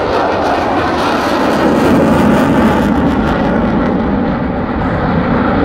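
Loud jet noise from an F-16 fighter flying a display manoeuvre with its afterburner lit: a dense, rumbling roar that swells slightly about two seconds in.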